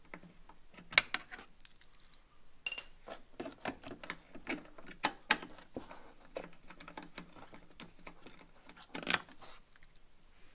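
Ratchet and socket extension working a 10 mm headlight bolt: irregular small metal clicks and clinks, with a few louder knocks.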